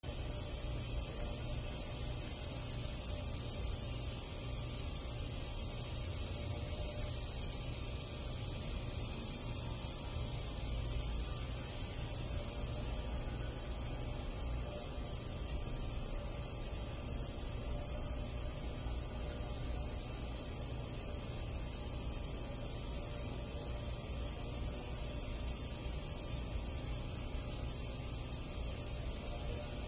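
Steady high-pitched trilling of insects, unbroken throughout, over a low steady rumble.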